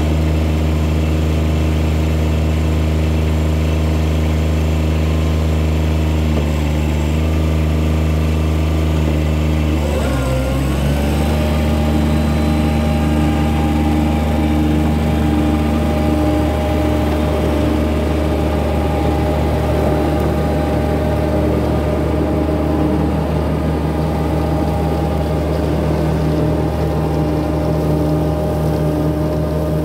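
Kubota B1161 compact tractor's diesel engine running steadily while mowing grass with its rear mower. About ten seconds in the engine note dips briefly and comes back up.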